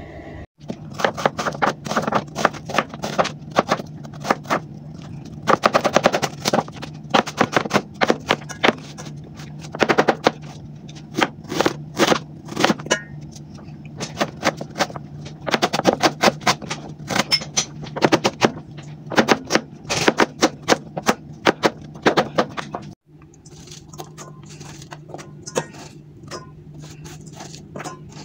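Kitchen knife rapidly chopping onion, ginger and cucumber on a plastic cutting board, in quick runs of strokes with short pauses between. The chopping stops about 23 seconds in, leaving a steady low hum.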